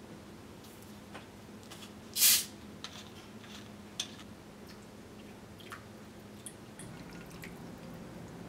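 Cap of a sparkling-water bottle twisted open with one short, loud hiss about two seconds in, followed by scattered faint clicks. Near the end, sparkling water is poured over ice in a glass.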